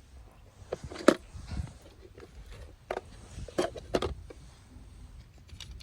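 Toy cars being handled: scattered light clicks and knocks, a few about a second in and a cluster around three to four seconds in.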